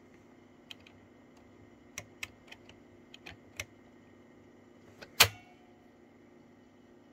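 Unitra ZRK MK 121 cassette recorder's plastic transport mechanism, with its head and pinch-roller carriage, clicking as it is worked by hand: a run of light clicks, then one sharp, much louder clack about five seconds in.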